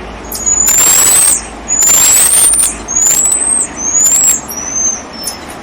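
Black-tufted marmoset giving a run of about five high, thin rising whistles (phee calls), each about a second long and each ending in a short drop, the later ones shorter and fainter. Loud bursts of hissing noise come with the first four whistles.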